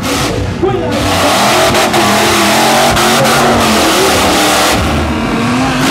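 Off-road 4x4 truck's engine revving hard, its pitch rising and falling, as the truck churns through deep mud, over a steady rushing noise.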